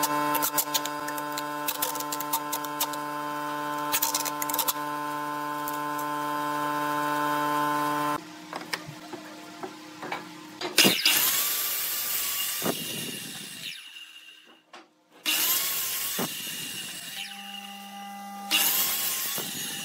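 A steady hum with scattered light clicks for about the first eight seconds. Then a sliding miter saw is switched on three times to crosscut a taped wooden block: each time the motor starts with a sudden whine and then winds down over a few seconds.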